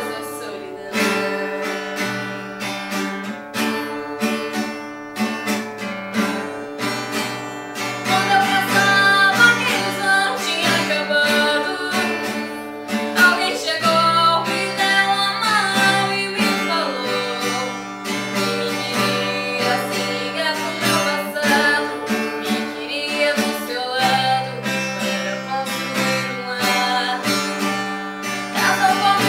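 A woman singing while strumming chords on an acoustic guitar, the voice carrying a melody over a steady strummed accompaniment.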